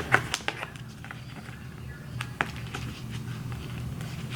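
Small clicks and taps of a cheek-swab kit being handled, its swab sticks pressed onto a paper card: a quick cluster at the start, then a few scattered taps about two seconds in.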